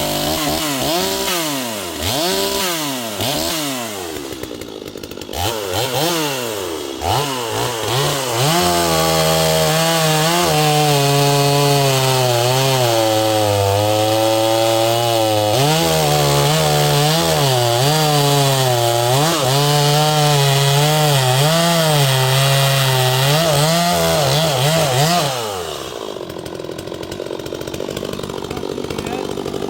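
Stihl MS250-clone two-stroke chainsaw revving up and down several times, then held at high speed for about sixteen seconds, its pitch dipping repeatedly as it bogs under load in a cut. Near the end it drops back to idle.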